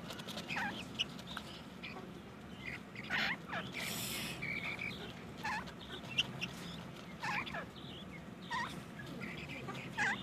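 Young black francolins calling from a cage: short, bending call notes repeated every second or two over a steady low background rumble, with a brief hiss about four seconds in.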